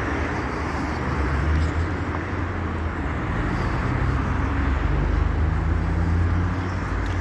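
Steady low rumble of town-square street noise with road traffic, picked up on a handheld phone.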